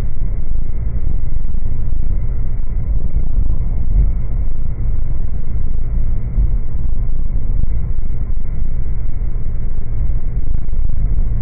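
Car driving along a road, heard from inside the cabin: a loud, steady low rumble of engine and road noise.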